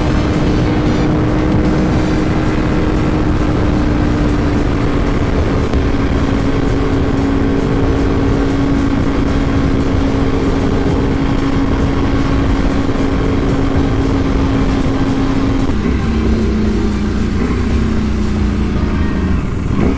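Ducati Panigale V4 superbike's V4 engine pulling steadily at high speed in top gear under heavy wind rush. Near the end its note drops lower in steps as the bike slows.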